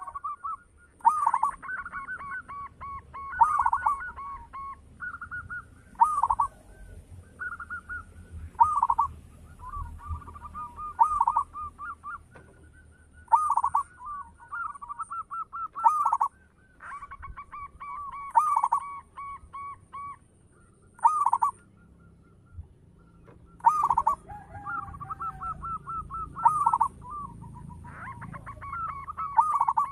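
Zebra dove (perkutut) singing: phrases of rolling, trilled coos repeated over and over, with a couple of short pauses.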